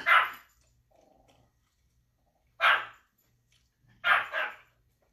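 A dog barking: four short barks, one at the start, one about two and a half seconds in, and a quick pair near the end.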